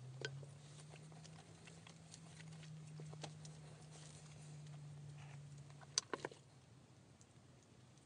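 A few light clicks and knocks of a knife and wooden utensils being set down on a wooden cutting board and log table, the loudest a quick group of three about six seconds in. A faint steady low hum runs underneath.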